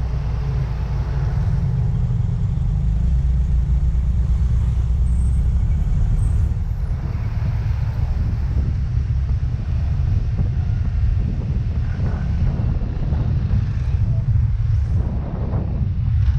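Riding noise from a Yamaha Mio Gravis scooter under way: a steady low rumble of wind buffeting the microphone over the running engine and road, with a few short louder gusts near the end.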